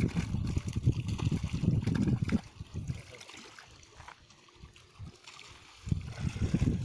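Water sloshing and splashing as people wade through a shallow, muddy fishpond hauling a seine net, with a low rumble of wind on the microphone. It drops much quieter through the middle, then rises again near the end.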